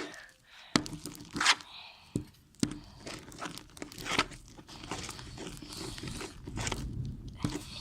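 Homemade white-glue slime being mixed and worked by hand, giving irregular sticky snaps and crackles.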